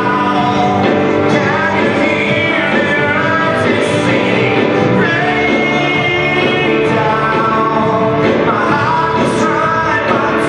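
Live worship band playing a rock-style song with electric guitars and drums, with singers' voices over it.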